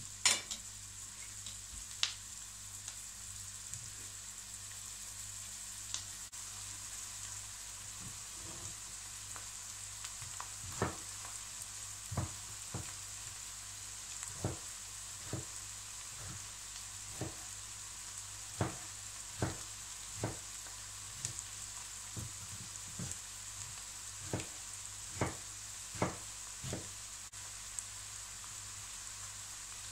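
Chopped onions frying in olive oil and butter in a pan on full heat, a steady sizzle. From about ten seconds in, a knife knocks on a wooden cutting board at irregular intervals, roughly one or two a second, as tomatoes are cut.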